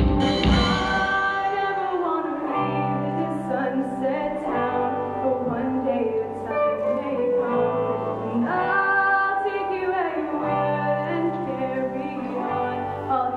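Live band playing: a woman singing over sustained electric guitar chords and long bass guitar notes, with no drum hits in this stretch.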